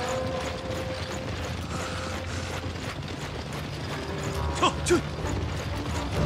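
Dense, continuous clatter of an armoured army on the move: armour and weapons jangling with hooves and footsteps, over faint background music. A short pitched cry stands out about five seconds in.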